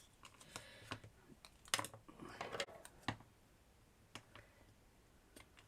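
Scattered light clicks and taps of small chipboard pieces and tools being handled on a work surface, with a short scrape or rustle a little past two seconds in.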